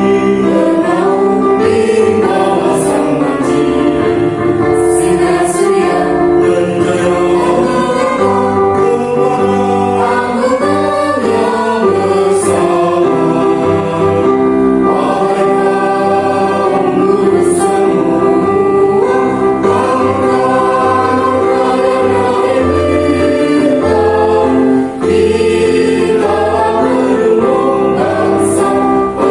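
A choir singing a song together, voices held in long sustained notes.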